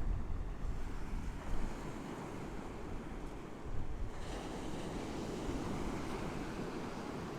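Sea surf washing onto the beach, with wind on the microphone; the wash swells louder about four seconds in.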